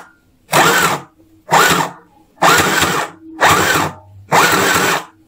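Mini portable sewing machine's small motor running in five short bursts about a second apart, each rising and then falling in pitch as it speeds up and slows down, stitching fabric with thick jeans thread.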